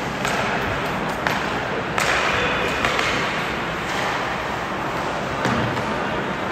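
Ice hockey in play: a steady wash of arena noise with skates on the ice and several sharp clacks of sticks and puck, the clearest about a second and two seconds in.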